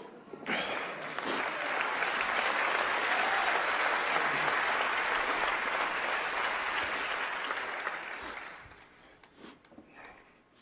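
Large theatre audience applauding, starting about half a second in, holding steady, then dying away after about eight seconds.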